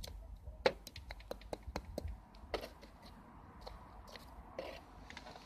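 Dying barbecue embers crackling: irregular sharp pops and ticks, thick in the first two and a half seconds and sparser after, over a low rumble.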